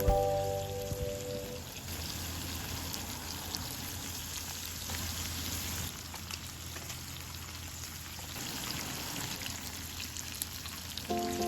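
Food sizzling and crackling on a hot multi-griddle pan, a steady fine-textured hiss with small pops.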